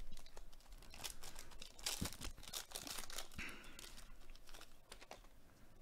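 Foil wrappers of Panini Contenders baseball card packs crinkling and tearing as they are ripped open: a run of crackles and short rips.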